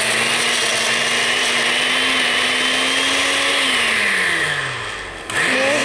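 Countertop glass-jar blender running, blending ice cream and milk; its motor hum rises slightly in pitch, then winds down and stops about five seconds in, and starts up again just before the end.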